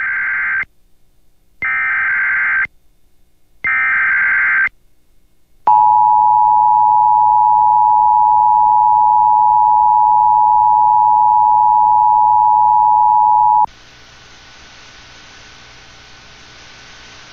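Emergency Alert System activation over the radio: three short buzzing bursts of SAME header data, about a second each and a second apart, then the steady two-tone EAS attention signal for about eight seconds, which cuts off suddenly into faint hiss before the tornado warning message is read.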